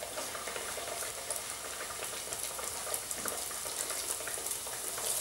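Dough deep-frying in a pot of hot oil: a steady sizzle dotted with many small crackles and pops.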